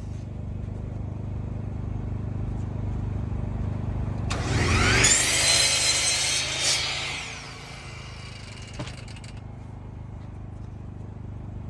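Electric power saw spinning up with a rising whine about four seconds in, cutting through wood for a couple of seconds, then its whine falling away as the blade winds down.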